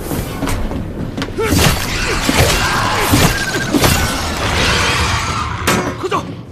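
Film action sound effects for a sea monster's attack: a loud, dense run of crashes, thuds and shattering, over a music score.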